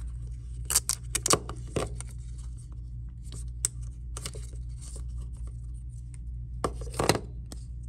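AirPods Pro packaging being torn open by hand: scattered tearing and scraping with several sharp crackles, clustered about a second in and again near the end, over a steady low hum.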